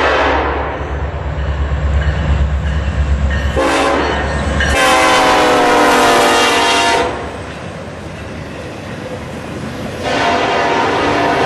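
A Norfolk Southern SD70ACe diesel locomotive blows its horn as it approaches, over a deep engine rumble. The horn's pitch drops as the locomotive passes about five seconds in, and the horn cuts off around seven seconds. Autorack freight cars then roll by with wheels clattering on the rails, louder again near the end.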